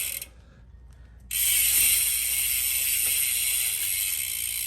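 Rear freehub of a new Hunt Carbon Aero 50 wheel buzzing loudly as its pawls ratchet while the wheel freewheels. The buzz breaks off just after the start and picks up again about a second and a half in.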